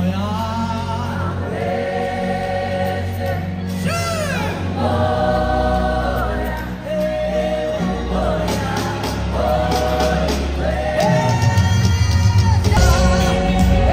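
Live gospel choir singing with instrumental backing and a strong bass, heard from within the audience. A quick rising vocal glide comes about four seconds in, and the music grows louder and fuller from about eleven seconds.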